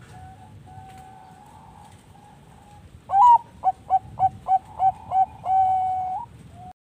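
Zebra dove (Bangkok perkutut) singing. A loud song begins about three seconds in: a rising-and-falling opening note, then a quick run of about seven short coos, then one long held coo. Fainter coos from other doves sound before it.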